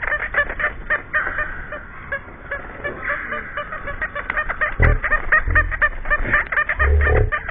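Hummingbirds crowding a feeder, giving a rapid, continuous chatter of sharp chips, several a second. Brief low rumbles come about five and seven seconds in.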